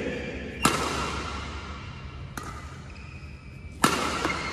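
Yonex Astrox 77 badminton racquet striking a shuttlecock: two loud, sharp hits about three seconds apart, with a fainter hit between them. Each hit leaves a brief ringing ping from the strings.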